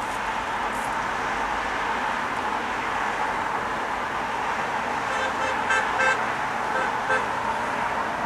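Vehicles of a cycle-race convoy passing over steady road noise. About five seconds in, a vehicle horn gives a quick run of short toots, then two more about a second later.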